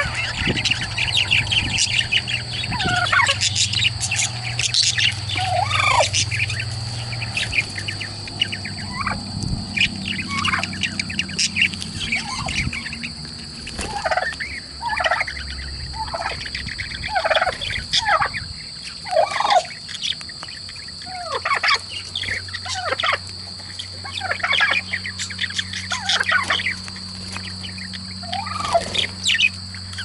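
A flock of budgerigars chirping and chattering, with many short calls that fall in pitch, some coming about once a second.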